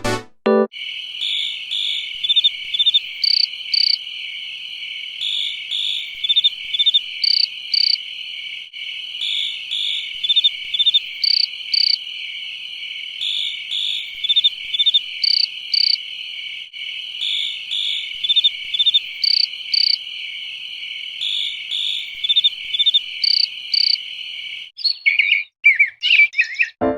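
HTC Infobar A02 ringtone: a steady, high, cricket-like trill with short higher chirps that come in pairs and small groups every couple of seconds. Near the end the trill stops and a few quick gliding chirps follow.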